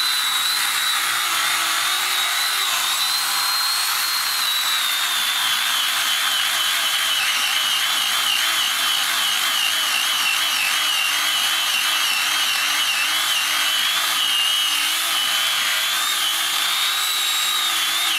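Chainsaw running at high throttle and cutting, a steady high whine whose pitch sags and wavers from about four seconds in as the chain works under load.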